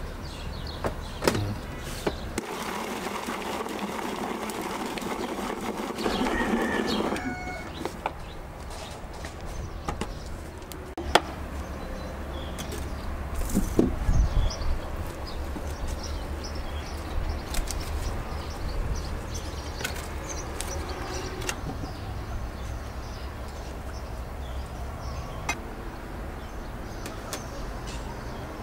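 Food preparation at an outdoor table: scattered clinks and knocks of glass bowls and utensils, over a steady low background rumble. A few seconds of rustling and scraping noise come early on, and a small cluster of knocks about halfway through.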